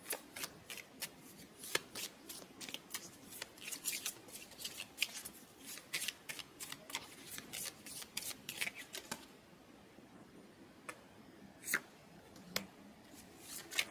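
A tarot deck being shuffled by hand: a quick run of card snaps and slaps for about nine seconds, then a few separate taps of cards near the end.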